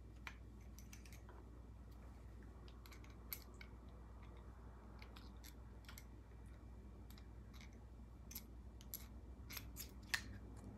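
Faint, irregular small clicks and taps of chainsaw intake and carburetor parts being handled and fitted by hand on a Husqvarna 246, with a sharper click near the end, over a low steady hum.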